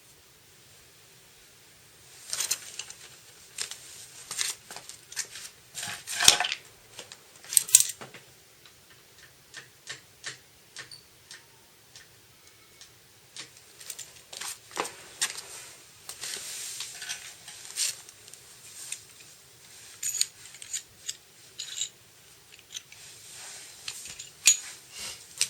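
Irregular clinking and clattering of small metal objects being handled and set down, with the loudest knocks about six and eight seconds in.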